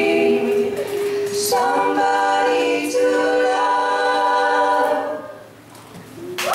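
Three women's voices singing unaccompanied in close harmony, holding a long final chord that shifts about a second and a half in and then dies away about five seconds in.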